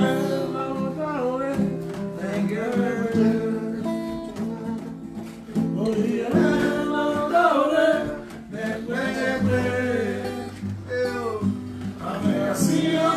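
Acoustic guitar played with a man singing along.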